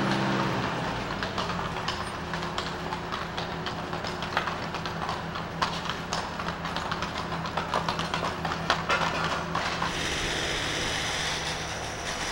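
Horses' hooves clip-clopping on cobblestones, as of a horse-drawn carriage, irregular sharp knocks over a steady low hum. About ten seconds in the hoofbeats stop and a steady hiss takes over.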